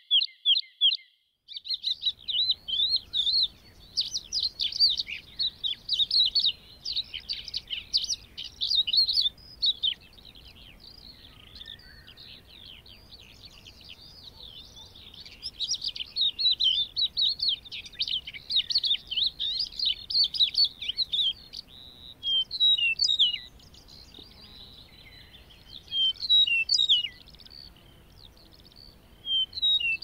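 Larks singing: long runs of fast, high twittering song made of rapid repeated notes, breaking off around ten seconds in and resuming, then shorter separate phrases toward the end.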